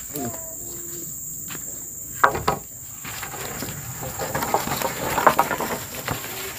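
Insects shrilling steadily on one high note, with two sharp knocks a little over two seconds in and a stretch of rustling and clattering from about four seconds.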